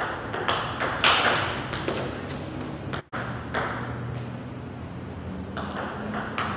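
Table tennis rally: the celluloid ball clicking sharply off bats and the tabletop, irregularly, a few hits a second with short gaps, each hit ringing briefly in the hall.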